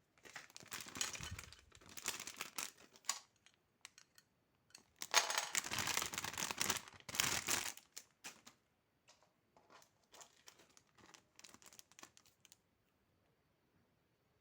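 Crinkly wrapping being handled, crinkling and rustling in three bursts, the middle one loudest, then stopping near the end.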